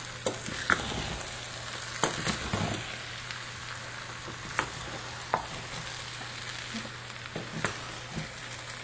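Spatula scooping and turning red rice up from the bottom of a metal pan, scraping and knocking against the pan several times, over a steady hiss of the rice cooking in the hot pan.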